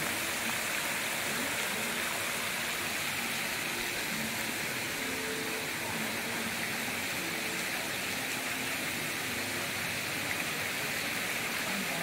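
Several fountain jets spraying up and falling back onto a pond, a steady, even splashing of water.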